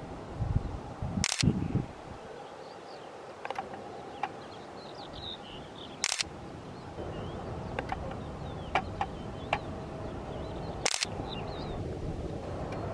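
Camera shutter firing three times, about five seconds apart, over steady outdoor background noise, with fainter small clicks between and a few low thumps in the first two seconds.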